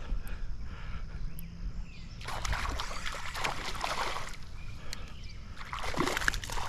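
Water splashing irregularly from about two seconds in, as a hooked bass is fought at the surface and brought in. Before that there is a low rumble.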